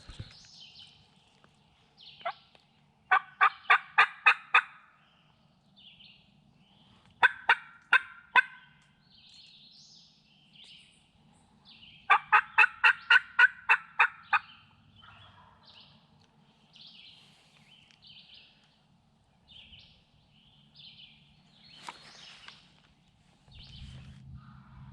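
Turkey yelping: three runs of evenly spaced, sharp yelps, about four or five notes a second, the first and last of eight to ten notes and a shorter one between. Faint small-bird chirps come in the gaps.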